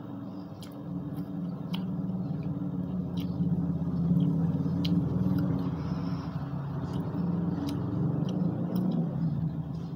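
A motor vehicle passing by: a low engine rumble swells over a few seconds, peaks midway and fades near the end. Small mouth clicks of chewing sound over it.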